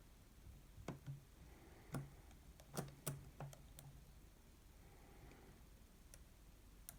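Faint, irregular clicks from a disc-detainer pick working the rotating discs of an Abloy Protec padlock: a cluster of clicks in the first few seconds and one more near the end.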